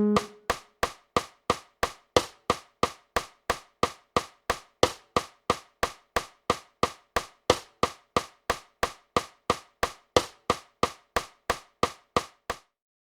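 Metronome click track ticking steadily at about three clicks a second, with every fourth click accented. The last note of the piano playback fades at the start, and the clicks stop shortly before the end.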